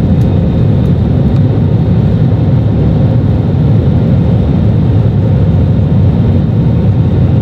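Airliner's underwing jet engines running loud and steady during takeoff, heard from inside the cabin: a dense low rumble with a thin high whine above it.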